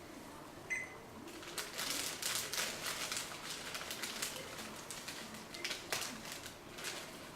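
Dry brown rice noodles crackling and clicking as they are handled and laid into a pot of boiling soup. The ticks come in dense runs with a single sharp click near the end.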